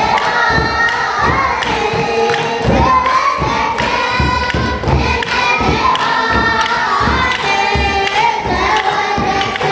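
A crowd of voices singing a church hymn together over a steady, slow drum beat, about one and a half beats a second.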